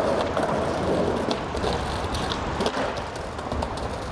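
Skateboard wheels rolling on rough street asphalt: a steady grinding rumble with a few short clacks of the board in the middle, the board running on by itself after the rider has come off it.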